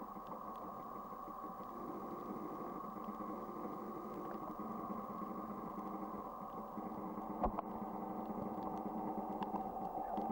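Steady mechanical hum, with a single sharp click about seven and a half seconds in.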